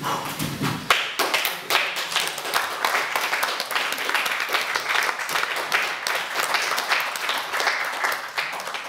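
A small group of spectators clapping, dense and irregular; the clapping starts abruptly about a second in.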